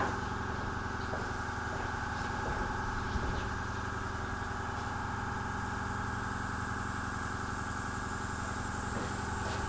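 Small airbrush compressor running with a steady hum.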